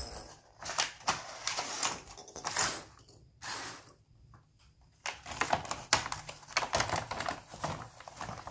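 Hard plastic toy pieces being handled, with irregular clicks and clatters and some rustling, pausing briefly around the middle before picking up again more densely.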